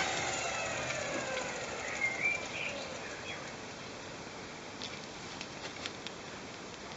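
Miele washing machine motor turned by hand, its rotor whirring and falling in pitch as it coasts down over about three seconds, followed by a few light clicks.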